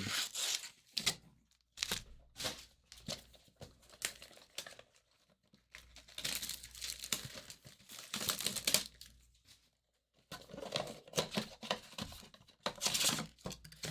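Plastic wrapping of trading card boxes and packs being torn open and crinkled in irregular rustling bursts, with a brief pause about two thirds of the way in.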